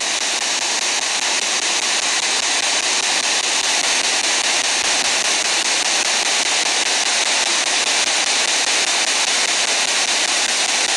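Steady, loud static hiss from a spirit box's small loudspeaker, a radio scanning through stations, with no voice coming through.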